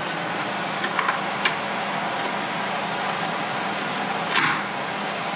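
Light clicks of printed circuit boards being handled, then one louder scrape or clack about four seconds in as a small sub-board is fitted against the main amplifier board, over a steady background hiss and hum.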